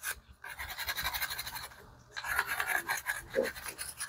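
Stiff brush scrubbing inside the polymer magazine well and grip of a Taurus G3C pistol frame, lightly oiled, in quick back-and-forth scraping strokes. The scrubbing comes in two bouts, with a brief pause just before the middle.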